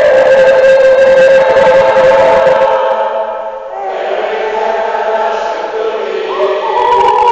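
Gospel choir singing long held chords. The first chord fades out about halfway through, a new one comes in just after, and the voices swell louder near the end.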